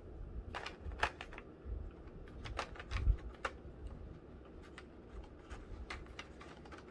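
Irregular light clicks and taps of small plastic action-figure parts (the figure's swappable hands and accessories) being handled, with a soft thump about three seconds in.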